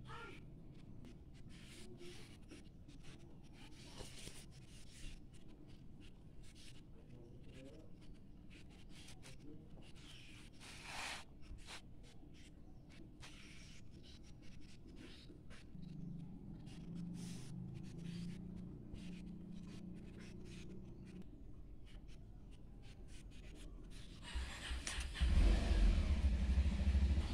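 Oil pastel scratching across notebook paper in quick short strokes. In the middle a low engine hum comes and goes, and near the end a loud low motor-vehicle rumble comes in and is the loudest sound.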